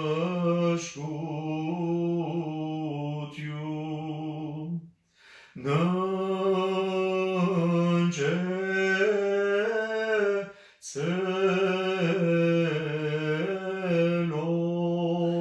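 Solo male voice chanting an Armenian prayer unaccompanied, in long held notes that step and glide between pitches, with short pauses for breath about five and eleven seconds in.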